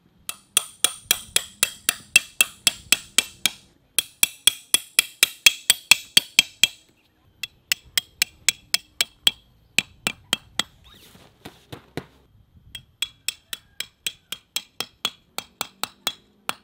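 A hammer driving steel tent stakes into the ground, about four sharp, ringing blows a second in several runs, with short pauses between stakes.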